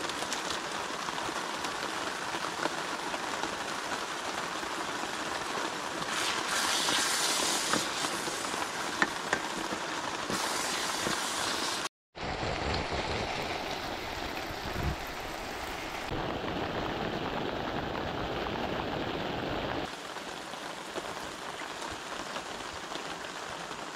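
Steady rain falling on a tent, broken by a brief drop to silence about halfway through.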